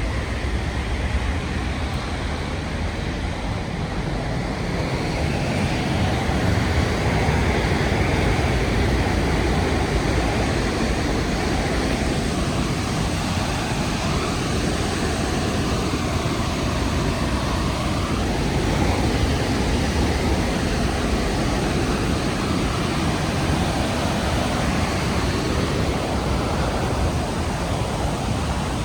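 The Rhine Falls' cascading water, a steady, loud rushing roar without a break.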